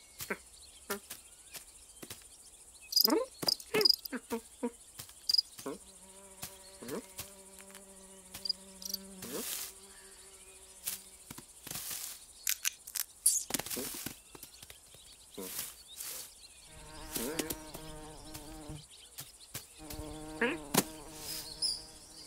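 Cartoon sound effect of an insect buzzing in steady stretches, one long run in the middle and two shorter ones near the end, amid scattered short clicks and squeaks.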